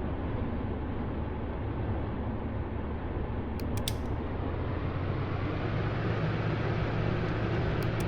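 Ceiling fans running: a steady low hum and rush of moving air, with a few short sharp clicks about halfway through and again near the end.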